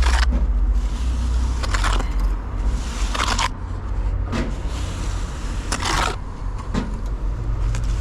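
Steady low rumble with short, irregular scraping sounds every one to two seconds.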